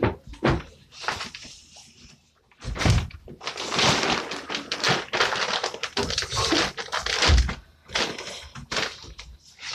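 Thumps and knocks of people climbing and jumping about on a wooden bunk bed, with scuffing and rustling in between; the heaviest thumps come about three seconds in and again near the end.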